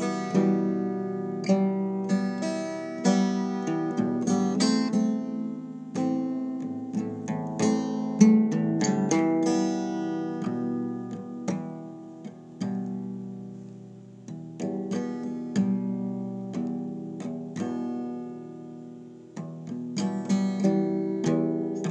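Acoustic guitar playing an instrumental passage of chords and picked notes, each struck sharply and left to ring.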